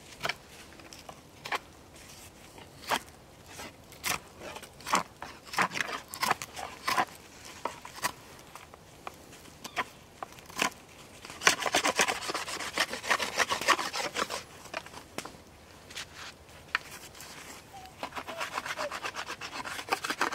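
A knife whittling a wooden stick: separate shaving and scraping strokes, then about 11 seconds in a quick run of rapid scraping strokes for two or three seconds, and another run near the end.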